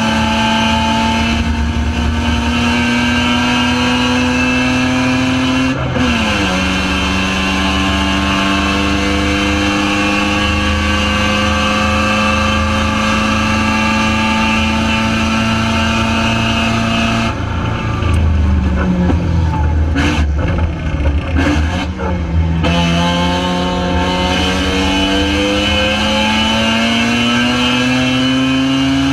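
Spec RX-7 race car's rotary engine at racing speed: the revs climb, drop sharply at an upshift about six seconds in, then climb slowly. About two-thirds through the revs fall away in steps as the car brakes and downshifts, then climb steadily again under full throttle.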